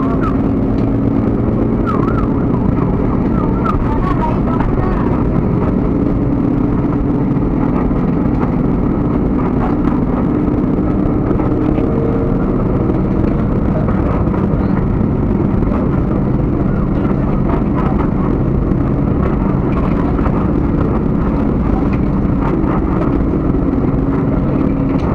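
Steady low engine and running rumble heard from inside a slowly moving vehicle, with a constant hum and no breaks.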